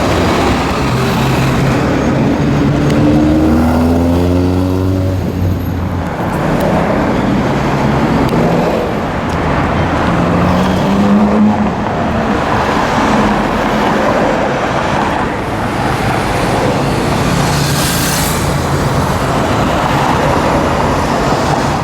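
Supercar engine accelerating in city traffic, rising in pitch for a few seconds and dropping off about six seconds in, then a second, shorter run-up around ten seconds in, over steady road traffic noise.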